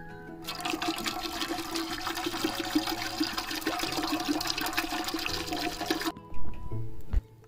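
Water poured from a plastic bottle into a metal cooking pot: a steady splashing stream that starts about half a second in and stops about six seconds in.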